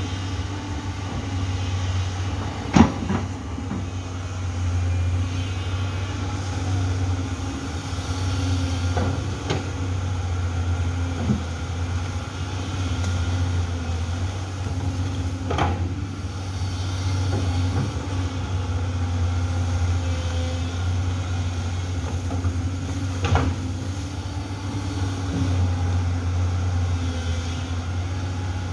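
Amphibious excavator's diesel engine running steadily, with a few sharp knocks or clanks, the loudest about three seconds in.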